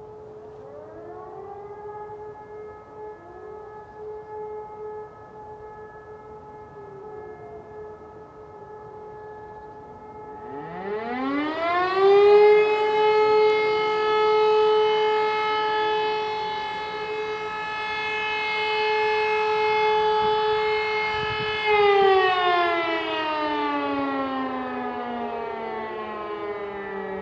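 E57 electromechanical motor siren sounding one blast of the fire-alarm signal: it spins up about ten seconds in, holds one steady tone for about eleven seconds, then winds down, falling in pitch near the end. A chorus of more distant sirens sounds underneath, some holding a steady tone, others winding up and down.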